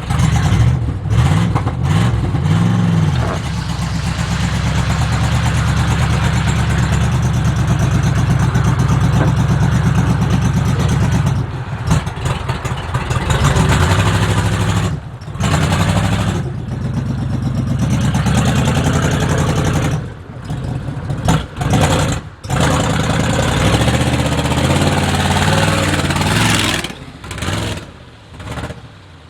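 1976 GMC motorhome's Oldsmobile V8 engine running and revving, its pitch rising and falling, with several abrupt breaks in the sound. The engine is struggling, which the owner puts down to a fuel system that isn't pulling fuel, clogged with dirt from a rotted tank.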